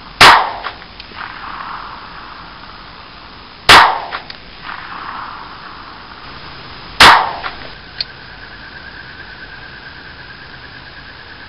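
Three shots from a Walther P22 .22 LR pistol, about three and a half seconds apart, each followed by a short echo.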